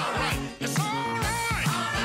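Background music: a song with a sung vocal over a steady drum beat.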